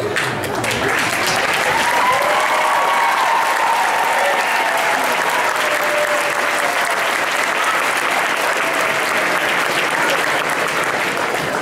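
Audience applauding and cheering in a school auditorium, steady clapping with voices shouting and whooping over it.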